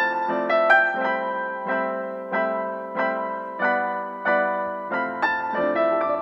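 Background piano music with notes struck at an even, unhurried pace, each fading before the next.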